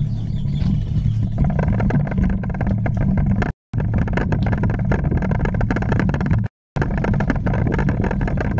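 Bicycle riding over a gravel track: wind buffeting the handlebar-mounted camera's microphone with a steady low rumble, and tyres crunching over loose stones with many small clicks. The sound cuts out abruptly twice for a fraction of a second.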